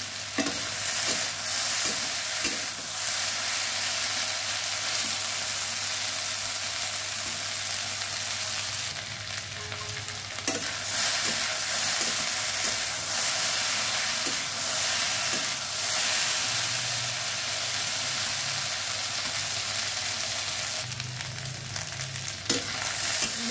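Okra and potato bhujia sizzling steadily as it fries in oil in a metal kadhai, with a few short clicks and scrapes from the spatula stirring it against the pan. The vegetables have just started to cook through.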